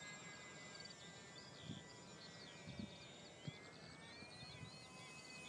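Faint, steady high whine of a Parkzone Mini T-28 RC plane's electric motor and propeller, running on a 2S LiPo far overhead, its pitch drifting slowly. Birds chirp throughout, and there are a few soft thumps.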